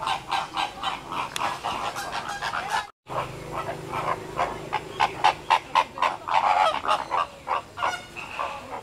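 A flock of flamingos honking, with many short goose-like calls following one another rapidly and overlapping. The calls break off for a moment about three seconds in.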